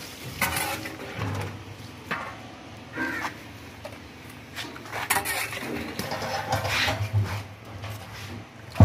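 Pigeons cooing, mixed with short scrapes and knocks of a steel ladle in a large metal cooking pot, and a sharp click near the end.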